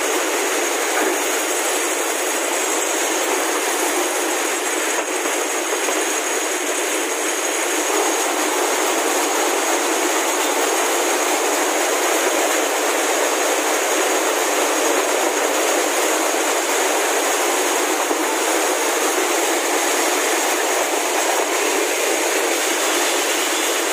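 Steady, dense clatter of textile fibre-processing machinery: drawing and spinning frames running together, coiling fibre sliver into metal cans. There is an even rattle with a thin, steady high whine on top.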